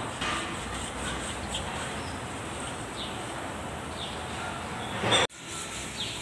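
Steady background noise with a few faint, short, falling chirps from small birds. Just past five seconds a louder noise swells briefly, then the sound cuts off abruptly and comes back.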